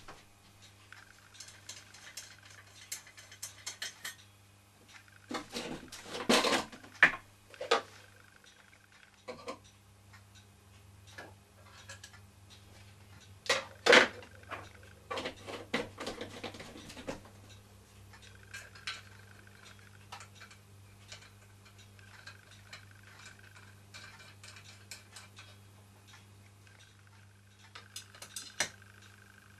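Metal clinks, taps and knocks from a small brass toy steam engine being handled and set up by hand, with the loudest knocks about six and fourteen seconds in.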